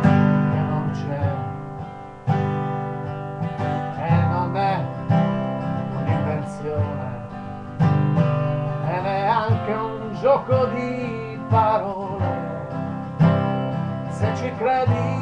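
Guitar played as an instrumental interlude: strummed chords with single notes picked between them, a few chords struck harder than the rest.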